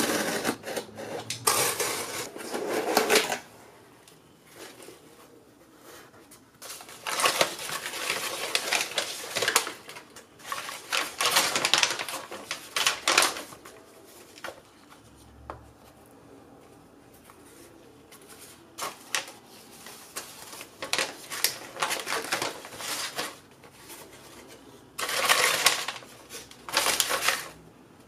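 A cardboard shipping box being opened with a utility knife and its brown paper packing handled and pulled out: irregular bursts of slitting, crinkling and rustling, a few seconds each, with short pauses between.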